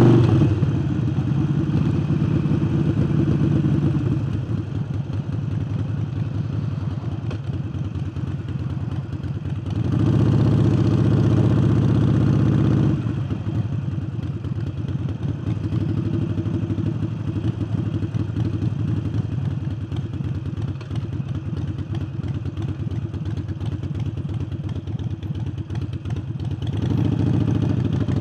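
Harley-Davidson Forty-Eight's air-cooled V-twin engine running under way, breathing through a new aftermarket air intake. It grows louder for about three seconds a third of the way in, then drops back to a steady run, and picks up again near the end.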